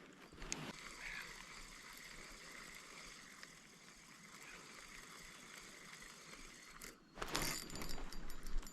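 Faint open-air hiss, then about seven seconds in a fishing reel starts clicking and rattling rapidly as line is reeled in on a small hooked pike.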